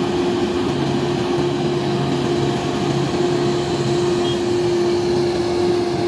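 Diesel engine of a Grove all-terrain mobile crane running at steady revs as the crane drives, a constant even hum.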